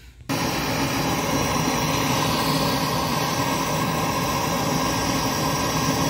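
Gas torch flame hissing steadily as it heats the copper tubing at a refrigerator compressor to unbraze the pipes; it starts abruptly about a third of a second in.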